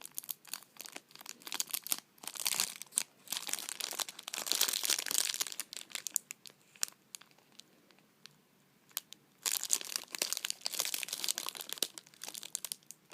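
Plastic snack-bar wrapper crinkling and crackling as it is handled, in bursts, with a quieter pause about halfway through.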